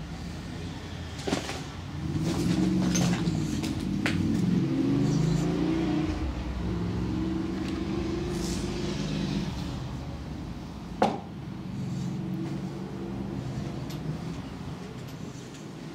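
A large engine running, its pitch shifting as it works, louder from about two seconds in and easing off toward the end, with a few sharp knocks, the loudest about eleven seconds in.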